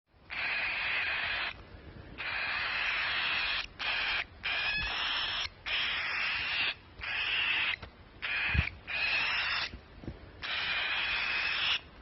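Baby cockatiel chick giving repeated raspy, hissing begging calls, about nine in a row, each lasting around a second with short breaks between them.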